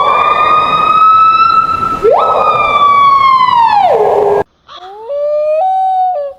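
A bird mimicking a siren: two long wails, each rising quickly, holding and then falling away. After a cut near the end comes a shorter, quieter call that steps up in pitch in a few jumps.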